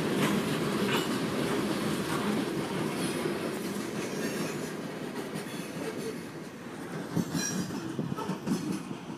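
Coal train's hopper cars rolling along the rails as the last cars pass and pull away, the rumble of the wheels fading steadily, with a few sharp wheel clicks late on.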